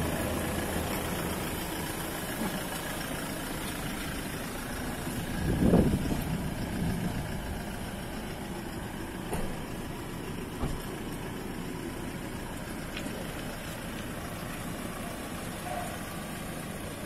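Unichip-tuned 2019 Toyota Hilux's 2.8-litre four-cylinder turbodiesel running at idle, with one brief louder surge about six seconds in.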